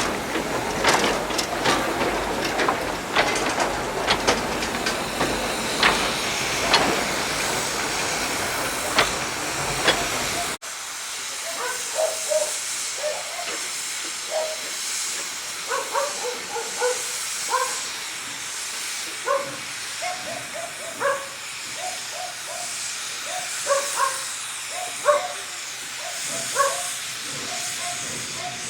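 Narrow-gauge steam locomotive letting off steam: a loud, steady hiss with sharp clanks and knocks. About a third of the way in it cuts abruptly to a quieter, thinner hiss.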